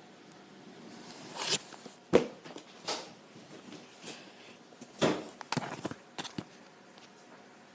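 A few sharp knocks and short rustles of objects being handled, the loudest knock about two seconds in and a cluster of clicks around five to six seconds.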